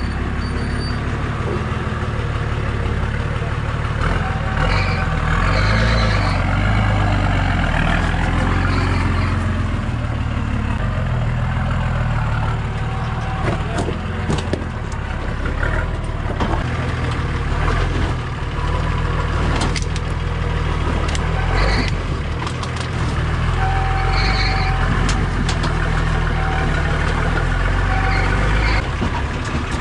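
Four-wheel drive's engine working under load at crawling speed, revving up and easing off over and over as it climbs over rocks, with scattered knocks in the middle.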